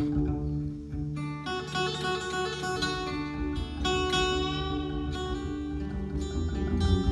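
Live acoustic music on plucked string instruments: a guembri's deep bass notes sound under bright guitar-like notes. The bright notes are struck about a second in and again about four seconds in, and ring and fade each time.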